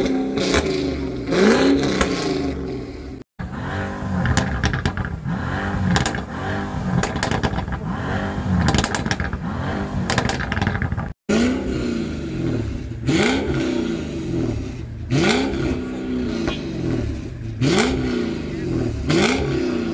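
Mercedes cars with loud performance exhausts revved one after another, each engine blipped up and dropping back again about every one to two seconds. The sound breaks off briefly twice as it moves to the next car.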